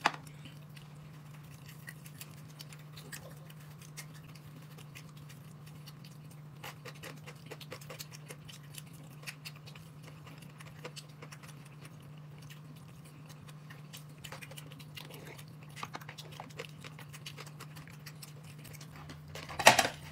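A person eating: scattered small clicks, taps and chewing sounds over a steady low hum, with a brief louder noise near the end.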